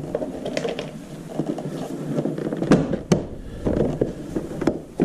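Hard plastic scooter body panels being handled and fitted back on, with scraping and several sharp clicks and knocks in the second half as the parts are pushed into place.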